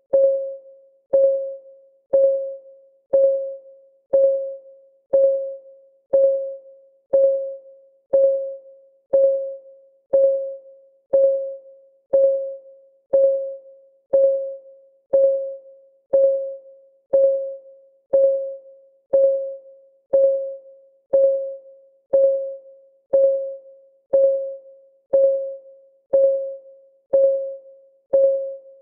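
Countdown timer's clock-ticking sound: one short pitched tick about every second at an even beat, each a clear mid-pitched tone that fades quickly.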